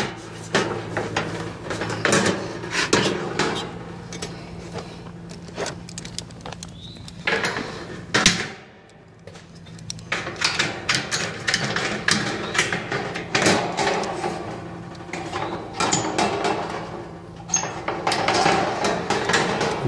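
Notching and bending the top end of a pre-painted steel standing seam roof panel with hand tools: a run of irregular metallic clicks, snips and clanks, with a short lull partway through. A steady low hum runs underneath.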